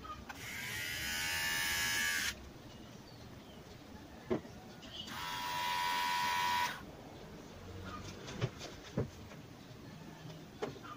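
Battery electric hair trimmer switched on twice. Each time it gives a motor-and-blade buzz that swells as it spins up, runs for about two seconds and then cuts off abruptly. A few sharp clicks follow between and after the runs.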